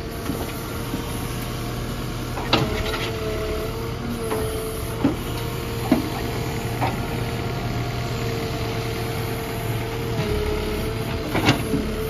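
Tata Hitachi Shinrai backhoe loader's diesel engine running steadily while the backhoe digs and scrapes soil. A whine dips in pitch now and then as the arm works under load, and there are a few sharp metal clanks.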